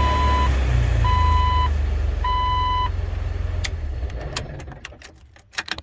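2003 Jeep Wrangler Rubicon's 4.0-litre inline-six running just after starting, now that the repaired ignition switch lets it crank. A warning chime beeps about once a second, four times. The engine sound fades away about four seconds in, and a few sharp clicks follow.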